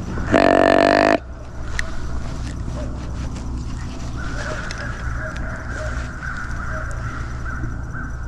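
A deer call blown once: a single drawn-out, nasal, animal-like note just under a second long, followed by quieter woods background.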